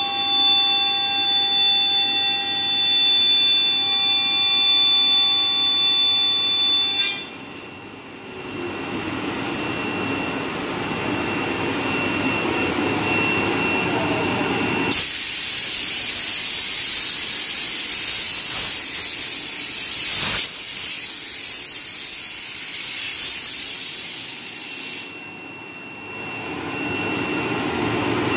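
CNC router spindle running with a steady high whine that cuts off about seven seconds in. About halfway through, a compressed-air blow gun hisses loudly for some ten seconds, blowing dust off the carved board, then stops.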